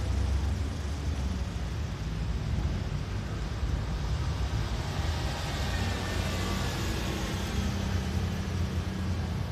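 Road traffic: a steady low rumble from car engines running close by, swelling for a few seconds about halfway through.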